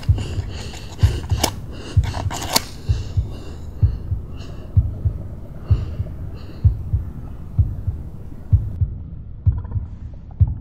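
Heartbeat sound effect: low, slow thumps at about one beat a second, often in double strokes. Sharp clicks and a hiss sit over it for the first few seconds, then die away.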